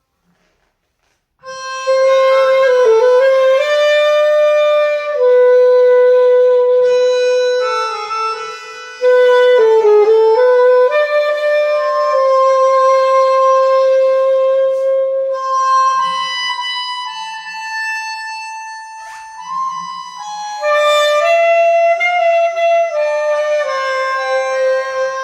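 Alto saxophone playing a slow line of long held notes with scoops down in pitch, coming in after about a second and a half of silence.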